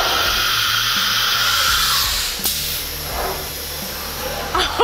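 Compressed air hissing from a Shop Sabre CNC router's pneumatic tool-change spindle as it picks up a tool, cutting off with a sharp click about two and a half seconds in, then a fainter hiss.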